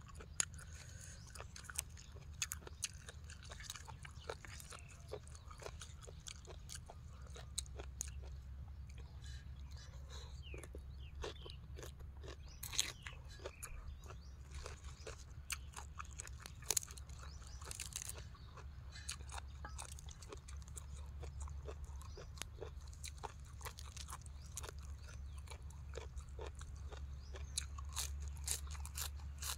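A person chewing and crunching a mouthful of papaya salad and raw vegetables close to the microphone: irregular crisp crunches and mouth clicks over a steady low rumble.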